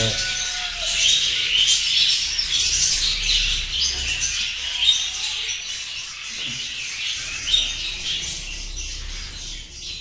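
Many budgerigars in a colony chattering and squawking continuously, a dense mass of overlapping high chirps. There are two brief louder knocks, about five and seven and a half seconds in.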